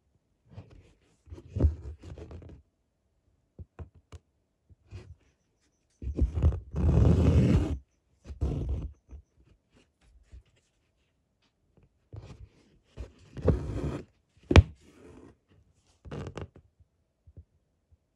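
Hand embroidery being worked in chain stitch: a needle and thread drawn through cotton fabric and fingers handling the cloth, in irregular rustles and scrapes with a few soft knocks. The longest, loudest rustle comes about six seconds in, and a sharp tap about fourteen seconds in.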